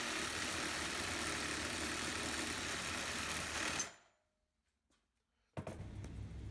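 Wire-feed arc welding on steel angle iron: a steady, dense crackle that cuts off abruptly about four seconds in. After a short silence a quieter low background noise comes in.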